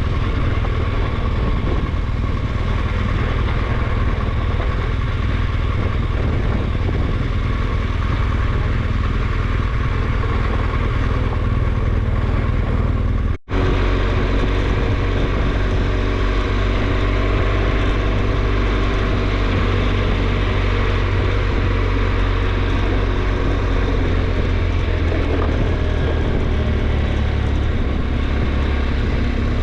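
Adventure motorcycle riding, its engine running steadily under a heavy low rumble. The sound drops out for an instant about halfway through, and the engine's steady tone is clearer afterwards.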